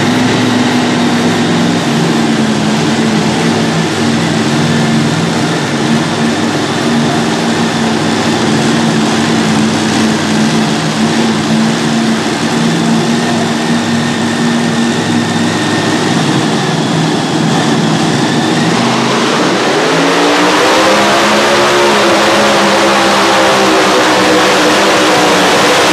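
Light modified pulling tractor's engine running steadily at a fast idle, then revving hard about three-quarters of the way in as the tractor launches into its pull of the sled, the pitch climbing and staying high with the front wheels lifting.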